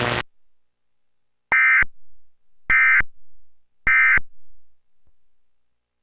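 Emergency Alert System end-of-message tones from a Trilithic EASyPLUS encoder: three short bursts of SAME digital data tones, about a second apart. They signal that the alert message has ended.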